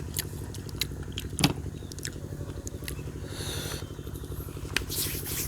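Mukbang eating sounds: chewing with scattered sharp clicks and mouth smacks, the loudest about a second and a half in, over a steady low hum.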